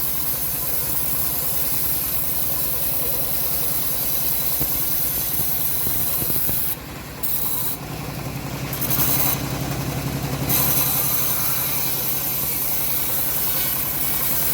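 Homemade bandsaw running and cutting a teak log, a steady mechanical drone with a rasping saw noise. The drive gets louder for a couple of seconds from about eight seconds in.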